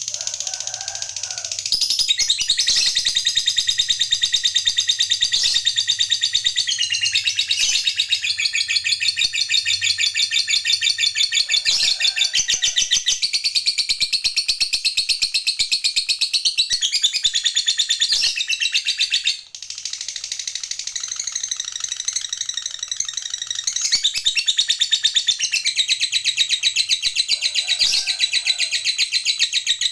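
Lovebird giving its long, unbroken chattering song ("ngekek panjang"), high notes repeated many times a second. It breaks off for a moment about two-thirds of the way through, then carries on.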